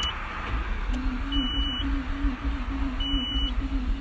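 Nissan Skyline GT-R R32's starter motor cranking its RB26 twin-turbo straight-six slowly and weakly, a wavering whine that rises and falls about twice a second without the engine catching. The weak cranking is the sign of trouble inside the engine, which had suddenly blown. A short high beep repeats about every second and a half.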